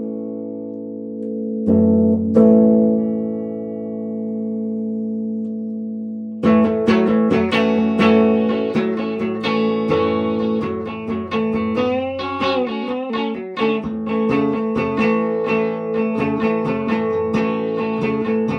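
1966 Gibson SG Standard electric guitar with its original electronics. Chords are struck and left to ring for several seconds, then from about six seconds in a run of quickly picked notes and chords follows, with a string bend near the middle.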